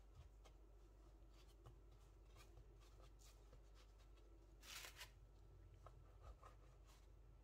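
Faint soft rubbing and brushing of hands rolling a floured potato dough into a log on a wooden board, with a few light clicks and one louder brushing rustle about two thirds of the way in.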